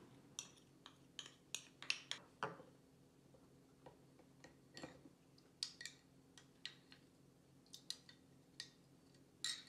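Metal spoon stirring cornstarch into water in a small glass bowl, making faint, irregular clicks and clinks against the glass.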